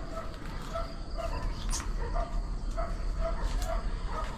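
An animal's short, high squeaking calls, repeated about two or three times a second over a steady background hiss.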